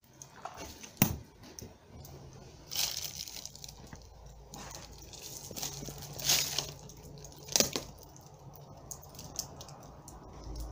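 Rubbish of paper and plastic rustling and crunching underfoot, with four louder crunches about one, three, six and seven and a half seconds in.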